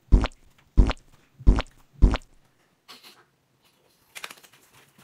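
Four short, soft thuds in quick succession as peeled bananas are set down one after another on a metal cake tray, followed by faint rustling and clicks near the end.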